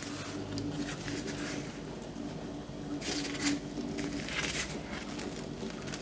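Soft rustling and crackling of thin, dry grill-baked flatbreads being bent and handled by hand, in several short bursts over a faint steady hum.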